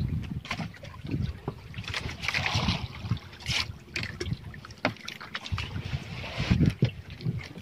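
Gusty wind on the microphone aboard a wooden fishing boat, with irregular low rumbling, a stretch of hissing water noise about two seconds in, and a few sharp knocks.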